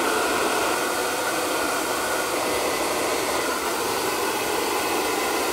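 Handheld hair dryer blowing steadily on damp braided hair, a constant rush of air.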